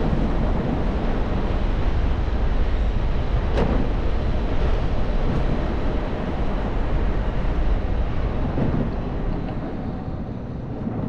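Wind rushing over the microphone of a helmet-mounted action camera on a moving electric scooter, with a low rumble of road and traffic noise. A single sharp tick comes about three and a half seconds in, and the rush eases near the end.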